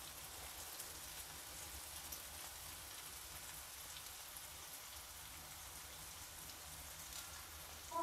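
Paneer slices frying in shallow oil in a non-stick pan: a faint, steady sizzle with fine crackles.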